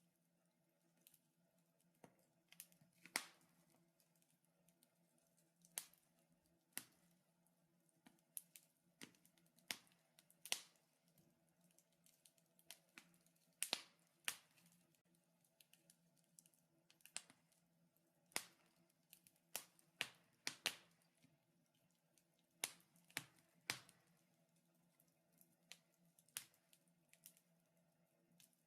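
Wood fire in a fireplace crackling, with irregular sharp pops and snaps at uneven intervals, some much louder than others, over a faint steady hum.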